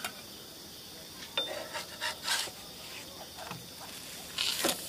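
Metal spatula scraping and clicking against a flat griddle as it works under a banana-leaf-wrapped parcel, a few faint scrapes first, then a louder scrape near the end as the parcel is turned over.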